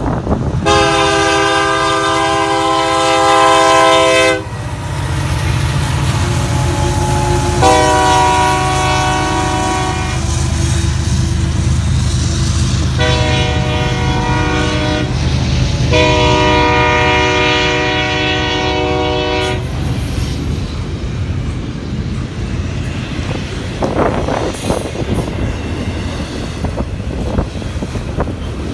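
Union Pacific freight locomotive's multi-tone air horn sounding the grade-crossing signal: two long blasts, a short one and a final long one. Under and after it, the steady low rumble of the locomotives and the double-stack container cars rolling past, with wheel clatter on the rails.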